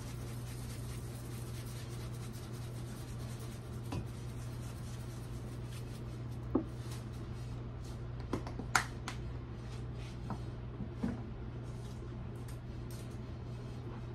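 A handful of light clicks and knocks from kitchen items being handled and set down, bunched in the middle, over a steady low hum.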